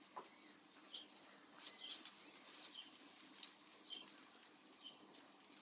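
Crickets chirping steadily outdoors in the evening, a high-pitched chirp repeated evenly about two to three times a second.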